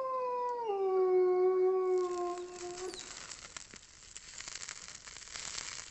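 A long drawn-out howl sliding down in pitch in a couple of steps, stopping about three seconds in, followed by a faint crackling hiss.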